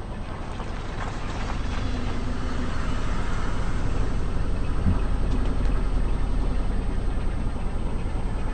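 Car engine running as the car rolls forward slowly, the rumble growing louder over the first few seconds, with a short low thump about five seconds in.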